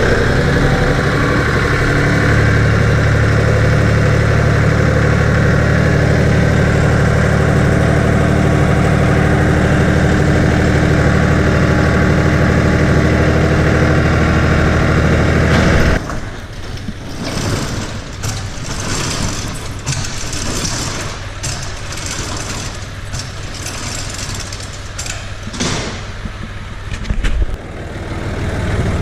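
Vehicle engine and road noise, a loud, steady drone as heard while driving. About halfway through it cuts abruptly to a quieter low engine hum with scattered clicks and knocks.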